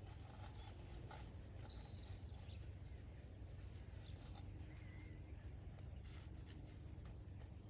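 Faint outdoor ambience: a steady low rumble of wind on the microphone, with two brief distant bird chirps and a few faint clicks.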